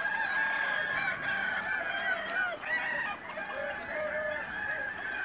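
A large free-range flock of chickens, mostly roosters, clucking and crowing over one another in many overlapping short calls.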